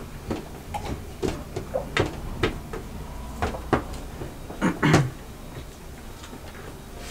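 Tableware knocking and clattering during a meal: about ten irregular light knocks and clinks, with the loudest pair about five seconds in.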